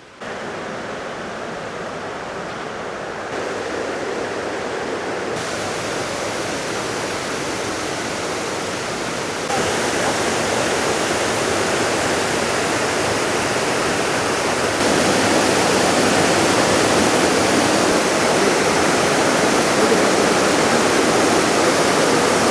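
Tuirihiau waterfall: the steady rush of falling water, which grows louder in several distinct steps as the falls come closer.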